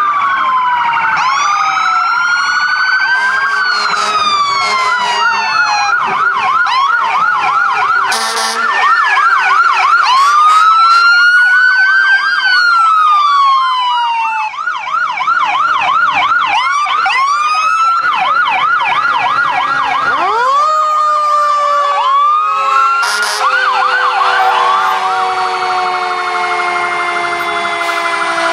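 Several emergency-vehicle sirens sounding at once from passing fire trucks and emergency vehicles, with slow rising-and-falling wails overlapping fast repeating yelps, broken by a few short horn blasts. About two-thirds of the way in, a deeper siren winds up quickly and then slowly winds down.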